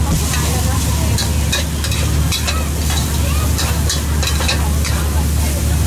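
A metal spatula scraping and clanging against a wok as fried rice is tossed and sizzles, with strokes about two or three times a second over a steady low hum.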